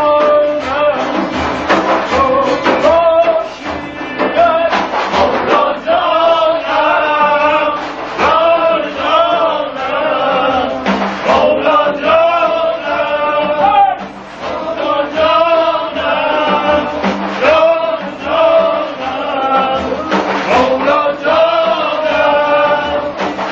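Male voices singing a Yarsani devotional chant over a strummed tanbur, with the strums keeping a steady rhythm under the melody.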